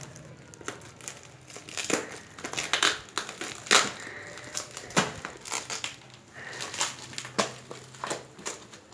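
Packaging being crinkled and torn open by hand while unwrapping a parcel, an irregular run of rustles and sharp crackles.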